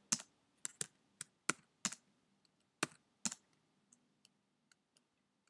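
Computer keyboard keystrokes: about eight separate key clicks in the first three and a half seconds, a letter key and the Enter key pressed in turn, then a few faint ticks.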